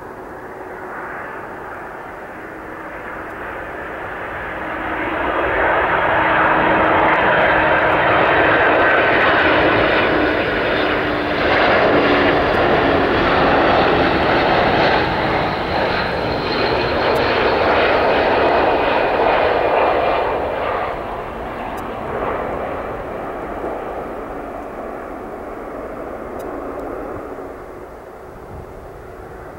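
Airbus A300-600 cargo jet's two turbofan engines on final approach, passing low overhead. The engine noise swells over a few seconds, stays loud for about fifteen seconds with a whine that falls in pitch, then fades as the aircraft flies on to touch down.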